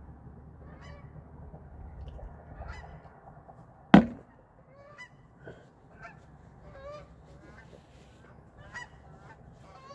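A flock of geese honking, with many short calls scattered throughout. About four seconds in comes a single sharp snap, the loudest sound, as the plastic flip-top lid of a shaker bottle is shut.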